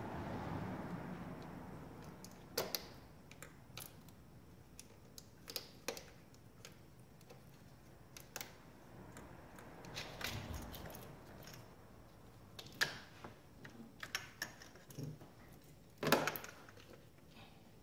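Irregular light clicks and taps of hand tools and metal parts being handled in an engine bay, with soft rustling of movement; the loudest click comes about sixteen seconds in.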